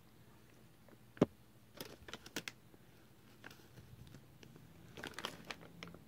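Plastic packaging bag being handled: scattered crinkles and small clicks, with one sharp click about a second in and a cluster of crackles near the end.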